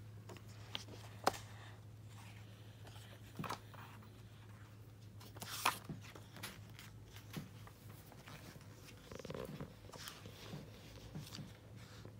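Quiet room tone with a steady low hum, broken by a few faint clicks and soft rustles.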